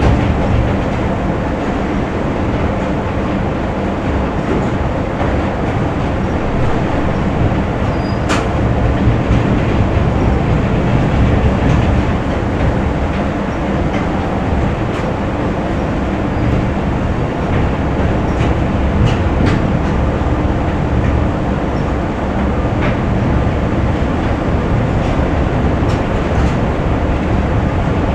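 Continuous factory machinery din: a loud, steady rumble and hum with a dense clatter, broken by a few sharp clanks.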